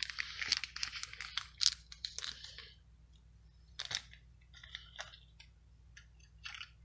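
Paper towels rustling and crinkling as they are handled and spread out by hand: a dense run of crackling for about two and a half seconds, then a few short rustles.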